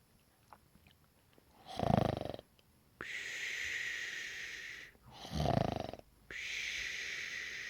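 A person snoring, two breaths: each starts with a short, loud rasping snore on the in-breath, followed by a long whistling out-breath lasting about two seconds.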